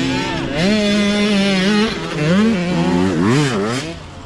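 Youth dirt bike engine revving hard as it passes, holding a high pitch, dropping and climbing again with throttle and gear changes, then swooping down and up before fading away.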